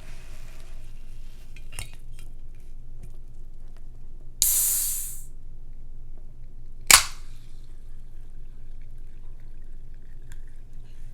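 Eating and drinking sounds at a table: a sudden short hiss about four seconds in, fading over under a second, then one sharp clink a little before seven seconds.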